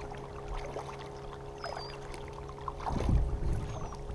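Kayak paddle strokes, the blades splashing and dripping water, with a faint high chirp about halfway through and a louder low rumble near the end.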